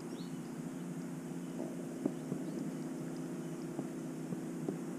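Spinning reel cranked in a steady retrieve: a low, even whir with a few light ticks.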